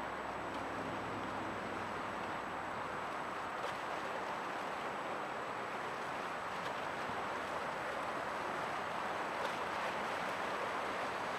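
Steady outdoor waterfront ambience, an even rushing noise with no single clear source. A faint low hum fades out in the first few seconds.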